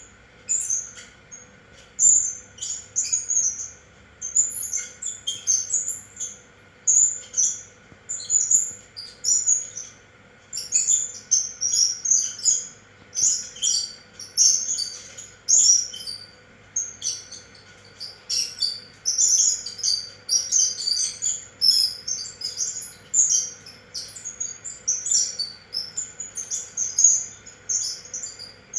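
High, bird-like chirps coming in quick irregular bursts over the faint steady hum of a running ceiling fan.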